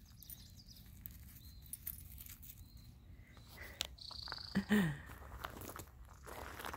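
Quiet outdoor ambience of faint rustling and light ticks, with a short high bird chirp about four seconds in and a brief low voice-like sound soon after.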